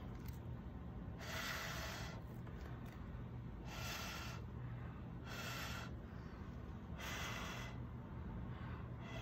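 Four short puffs of breath blown through a plastic straw onto wet acrylic paint, about one every one and a half to two seconds, pushing the paint blooms outward.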